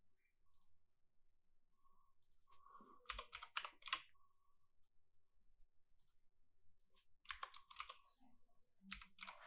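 Computer keyboard keystrokes and clicks, faint, coming in a few short bursts separated by pauses.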